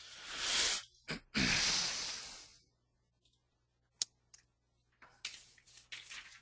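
A person breathes twice close to the microphone, each breath a second or so of breathy hiss. About four seconds in comes a single sharp click, then a softer one just after.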